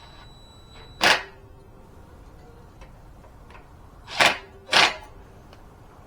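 Three sharp metal clanks from steel floor-jack parts being handled during assembly, the first about a second in and two close together near the end, each leaving a brief metallic ring.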